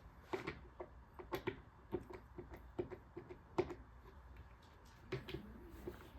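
Irregular light clicks and knocks of small assembly hardware (dowels, mini-fix bolts and cams) and closet panels being handled and fitted, about a dozen in all, the sharpest a little past halfway.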